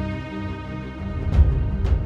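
Dark cinematic background music with sustained held tones, then two deep drum hits about half a second apart in the second half.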